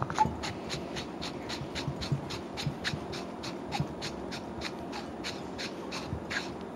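Light, evenly spaced clicks, about four a second, as a hand twists the end section of a metal lightsaber hilt.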